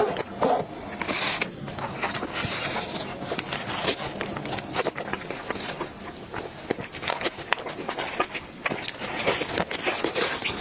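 Close-miked chewing and eating sounds of a soft dessert, a steady stream of small clicks and crackles.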